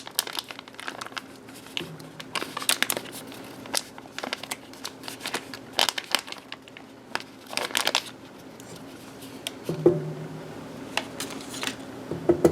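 Paper wrappers being peeled off and crumpled from sticks of softened butter: irregular crinkling and rustling with scattered light clicks.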